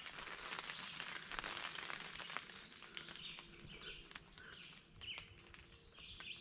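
Quiet woodland with faint ticks and rustles in the first couple of seconds, then a run of short, high, faint chirping calls from about three seconds in.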